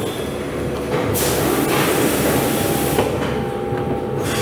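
VARIOVAC Rotarius VG tray sealer running with a steady mechanical drone, and a loud hiss from about one second in that lasts about two seconds.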